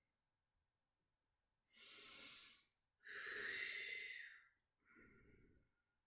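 A person breathing deeply and audibly through yoga movement: three long, breathy breaths close to the microphone, the middle one the loudest and the last one shorter and softer.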